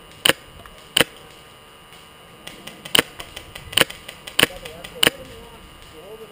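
Airsoft rifle shots: six sharp, single cracks at irregular intervals, with fainter shots in between from about two and a half seconds in.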